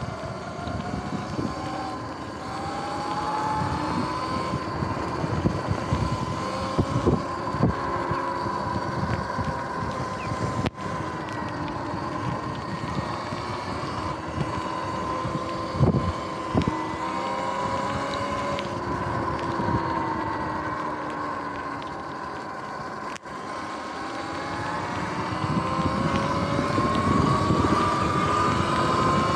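Electric bike's hub motor whining, its pitch rising and falling with speed and climbing near the end, over wind on the microphone and tyres on wet pavement. A couple of short knocks from bumps in the path.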